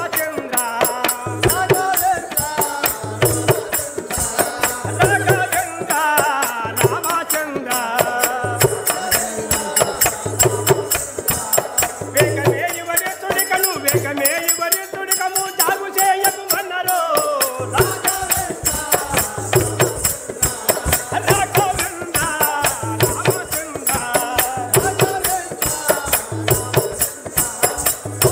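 Live folk-theatre music: a wavering melody over a low drum beat that falls roughly once a second, with rapid jingling of small cymbals or rattles throughout.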